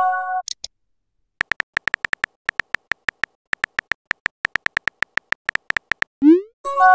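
Texting-app sound effects: a short bright chime, then after a brief pause a run of rapid, irregular on-screen keyboard typing clicks for about five seconds, a short rising pop near the end and the chime again.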